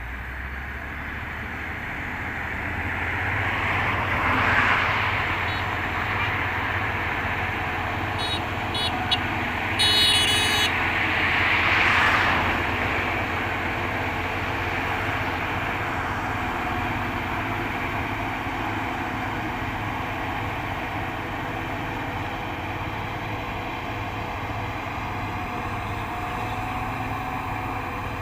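Corn harvester engine running steadily with a low hum, swelling and fading twice as it draws near and moves off. About eight seconds in, a high horn gives three short beeps and then one longer one.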